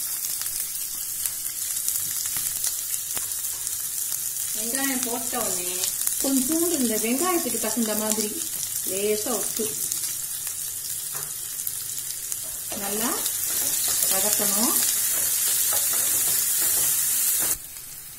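Chopped onions sizzling as they fry in hot oil in a non-stick pan, stirred with a wooden spatula, with a voice heard at times in the background. The sizzle cuts off suddenly near the end.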